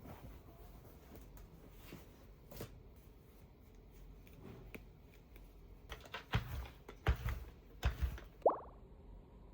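Soft handling noises of small objects being worked by hand: light taps and rustles, a few sharper knocks in the second half, and a brief rising squeak near the end.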